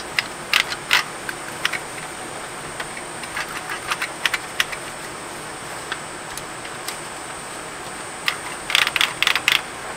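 Scattered light clicks and taps of hard plastic parts of a CD player's case being handled, with a quick run of clicks near the end.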